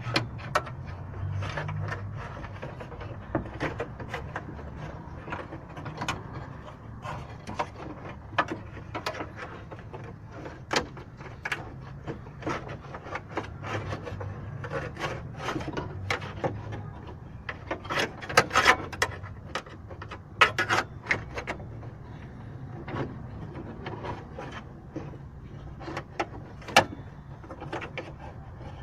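Hands working on a car door lock cylinder: irregular clicks, taps and scraping of its small metal parts, with a cluster of sharper clicks about two-thirds of the way through.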